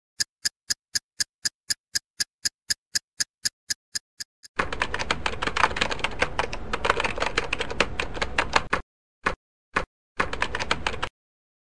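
Typewriter typing sound effect: evenly spaced key clicks about four a second, then from about four and a half seconds a fast, dense clatter of typing that breaks off, gives two single clicks, runs briefly again and stops.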